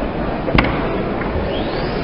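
Steady background hubbub of a crowded exhibition hall, with one sharp knock about half a second in.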